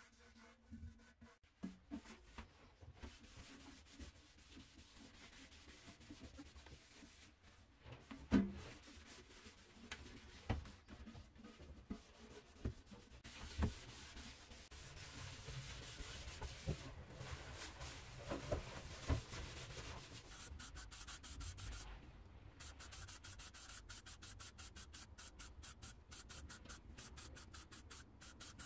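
Sandpaper rubbed by hand over the painted steel body of a Valor paraffin can, in repeated scuffing strokes, with a few sharp knocks along the way and a fast, even rattling in the last few seconds.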